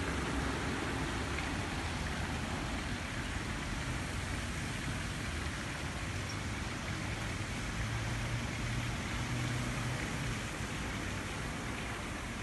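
Steady outdoor background noise: an even hiss with a low hum underneath that grows slightly louder a little past the middle.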